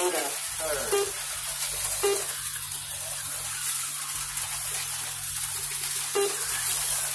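HO-scale slot cars running laps on the track: a steady high whirring hiss of the tiny motors and pickup shoes on the rails, with a few short pitched blips about a second in, two seconds in and near the end.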